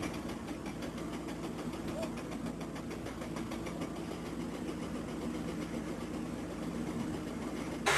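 Orange quarry chain-arm stone saw running steadily, a constant machine hum as its cutting arm is raised out of the stone block.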